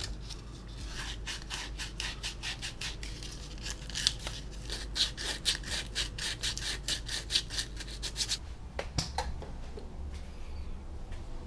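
A hand tool worked quickly back and forth, making rhythmic rubbing strokes at about three or four a second. The strokes stop about eight seconds in, followed by a few light clicks.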